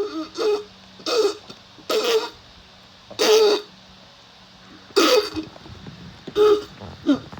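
A person making short, harsh noises in the throat, about seven of them at uneven gaps of roughly a second.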